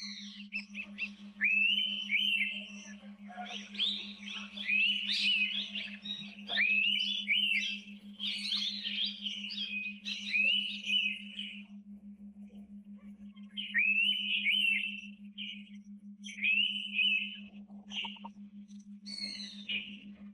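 Several forest birds calling together in bursts of overlapping whistled notes, many rising quickly and then holding steady, with a busy stretch for the first ten seconds or so and shorter bursts after. A steady low hum runs beneath.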